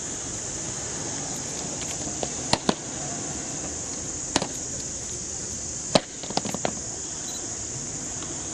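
Cadets' drill boots stamping on hard ground as the escorts halt and take post, heard as a few sharp knocks: two close together about two and a half seconds in, one at about four and a half, and a louder one at six followed by a quick cluster. A steady high hiss runs underneath.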